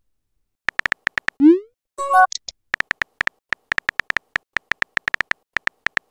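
Text-messaging app sound effects. A few keyboard taps, then a rising swoosh as a message is sent and a short chime just after. Then comes a long run of rapid keyboard tap clicks as the next message is typed.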